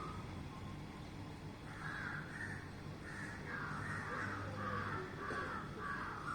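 A crow cawing in a quick series of harsh calls, about seven or eight, starting about two seconds in, over a faint steady low hum.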